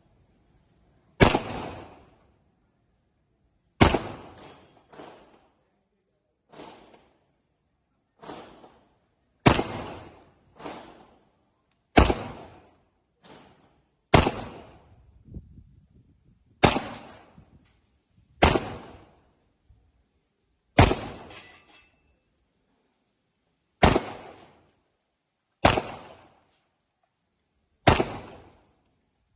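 Glock 21 Gen4 .45 ACP pistol fired in slow, deliberate single shots, about eleven loud reports two to three seconds apart, each trailing off in an echo, with a few quieter reports in between.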